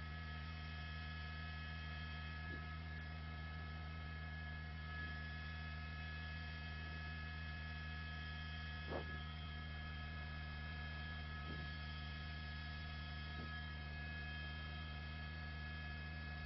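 Steady drone of a helicopter, many even tones from engine and gearbox blended into a constant hum, as heard in the cabin. A faint tick comes about nine seconds in.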